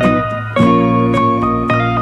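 Background music: a steady run of plucked notes, a new one about every half second, over a sustained bass.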